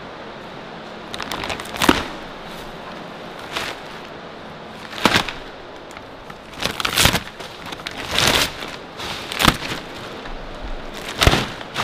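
Thick aluminum-foil packaging wrap being pulled and crumpled by hand, crinkling and crackling in irregular bursts, about eight of them, each a second or less.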